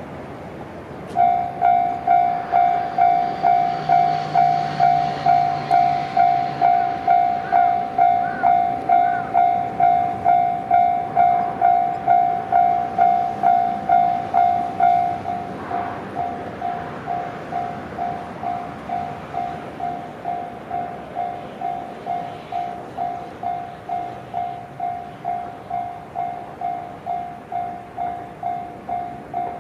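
Japanese railway level-crossing warning bell ringing, an even 'kan-kan' tone at about two strokes a second. It starts about a second in and drops to a lower volume about halfway through.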